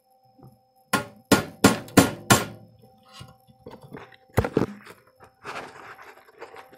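Ball-peen hammer striking a steel part: five quick blows about a third of a second apart, then after a pause one more sharp blow, with a few lighter knocks and clinks of metal between.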